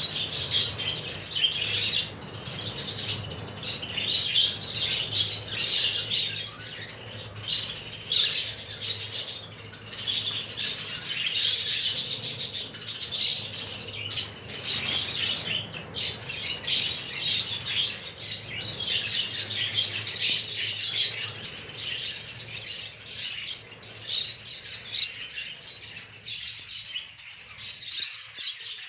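A large flock of budgerigars chattering and chirping continuously, with wings flapping as birds fly about, over a faint low steady hum.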